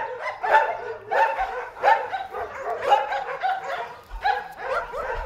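Several dogs barking and yelping over one another, short calls coming several times a second.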